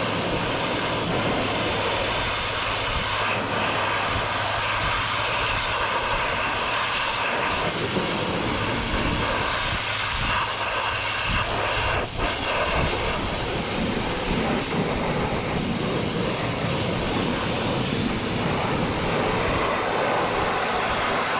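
High-pressure washer running, its water jet spraying against farm machinery: a steady hiss over the washer's motor hum.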